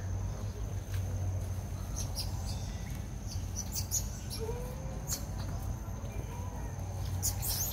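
Outdoor forest ambience: a steady high-pitched insect drone over a low rumble, with scattered short, sharp chirps and one brief rising call about halfway through.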